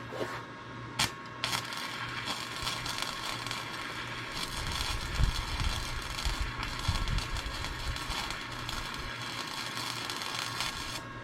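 Wire-feed welder arc crackling steadily as a weld bead is run, after a short spark about a second in; the crackle stops near the end.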